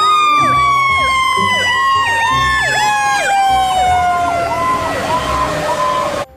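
Fire truck sirens: one long wail slowly sliding down in pitch, over a yelping siren that repeats about twice a second. It cuts off abruptly near the end.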